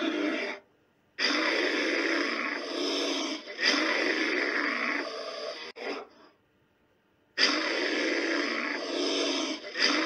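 Dubbed-in animal growling sound effect, played in stretches of two to four seconds that start and cut off abruptly. There is a short near-silent gap about a second in and another about six seconds in.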